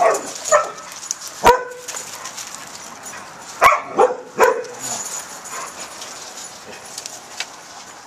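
Seven-week-old puppies yapping: about six short, high yaps in two clusters in the first half, one with a sharp click, then only soft scuffling.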